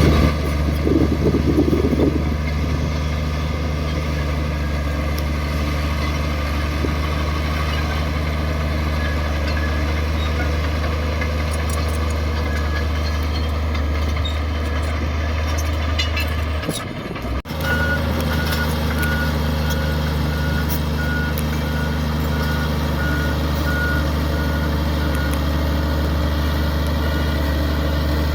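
Diesel engine of heavy earthmoving machinery running steadily. It drops out briefly a little past halfway. A reversing alarm then beeps about twice a second for several seconds.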